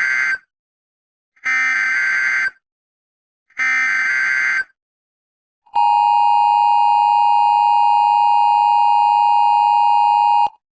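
Emergency Alert System SAME header: three roughly one-second bursts of screechy digital data tones about a second apart, the first already under way. These are followed by the steady two-tone EAS attention signal, held for about five seconds before it cuts off, marking the start of an Amber Alert broadcast.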